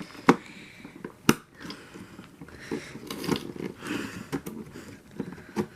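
RAM sticks being pushed into motherboard DIMM slots: two sharp plastic clicks about a third of a second and a second and a third in, then fainter taps, scrapes and rustling of handling. The sticks are not yet fully seated.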